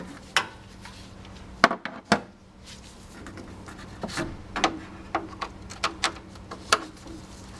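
Phillips screwdriver working at the engine cooling fan's mounting bolts: scattered sharp clicks and light scraping of the tool on the bolts and surrounding parts, over a faint steady hum.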